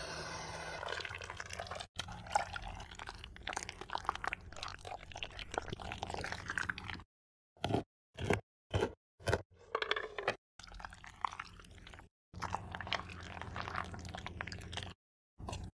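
Close-miked food-preparation sounds in quick cuts. First comes the wet churning of juice under a hand blender, then about five separate knife chops through chocolate near the middle, then more wet squishing of fruit being pressed.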